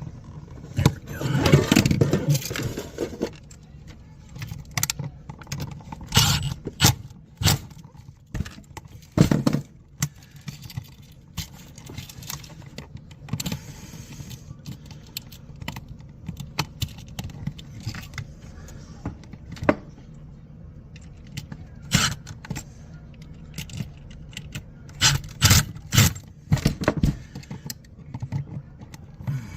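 Scattered clicks, knocks and metallic rattling from hands working with tools and small parts, busiest about a second or two in, then irregular single clicks.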